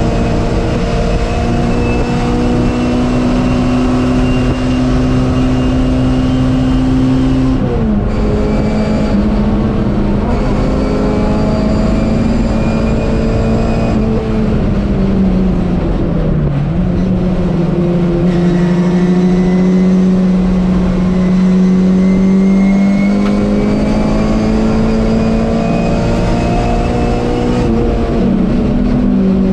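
MG Metro race car's A-series four-cylinder engine running hard, heard from inside the cabin. The revs drop sharply about a quarter of the way in, dip again just past halfway, climb slowly, and fall once more near the end.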